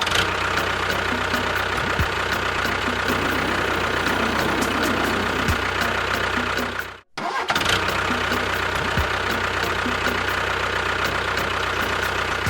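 A motor vehicle engine running at a steady idle. It cuts out abruptly for a moment about seven seconds in, then resumes unchanged.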